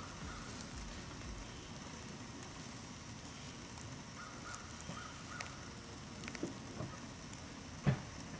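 Small scrapes and rustles of dry leaves and soil as a hand digs at the base of a tree, with one louder thump near the end. Faint bird calls in the background.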